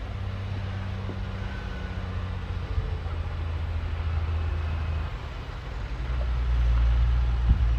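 Shantui bulldozer's diesel engine running with a steady low drone. About six seconds in it grows louder and deeper, and a short knock sounds just before the end.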